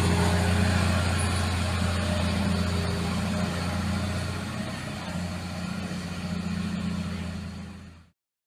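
Heavy vehicle engine running steadily with a low, even drone. It slowly fades and cuts off to silence about eight seconds in.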